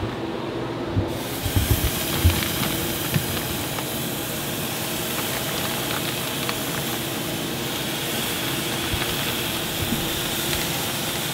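Marinated duck breasts sizzling steadily on a hot grill grate. The sizzle comes in about a second in as the meat goes on, with a few low thumps in the first couple of seconds.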